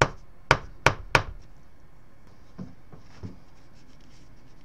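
An unincubated-to-term bantam chicken egg, dead in the shell after 24 days, tapped sharply four times against a paper plate lined with paper towel to crack the shell. Two softer knocks and faint crackling follow as the cracked shell is picked at with a thin tool.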